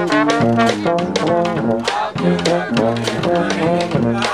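Marching brass band playing a march: saxophone, trombone and sousaphone carrying the tune over a steady drum beat.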